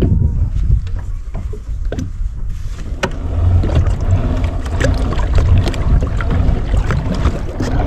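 Wind buffeting the microphone over water lapping against a kayak's hull, with scattered light knocks. The water noise grows louder about three seconds in.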